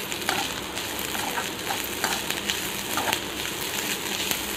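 Chopped onions and green chillies sizzling in hot oil in a kadai, stirred by a perforated metal ladle. Irregular clinks and scrapes of the ladle against the pan sound over a steady frying hiss.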